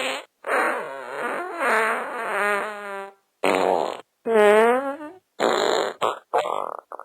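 A run of fart sound effects, about six separate ones with short gaps between. The first is long and wobbling, about two and a half seconds. Shorter buzzing and raspy ones follow, ending in a few quick sputters.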